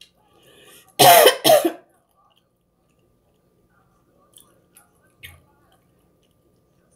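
A woman coughs twice in quick succession about a second in, two short, loud coughs, followed by a few faint clicks.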